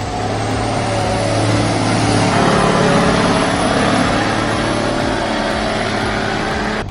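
An engine running steadily and hard, with a constant low hum under a dense, slightly rising noise; it cuts off abruptly near the end.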